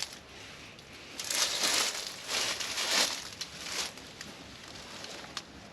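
Hammock tarp fabric rustling and crinkling as it is pulled and shifted by hand, in a few bursts of under a second each.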